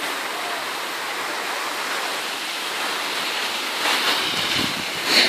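Steady hiss of skis sliding and scraping over packed snow, mixed with wind on the microphone, swelling around four seconds in, with a short, louder burst near the end.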